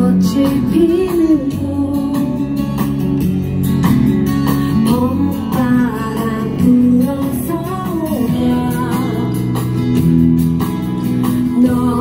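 A woman singing live into a handheld microphone over recorded backing music, amplified through outdoor PA speakers.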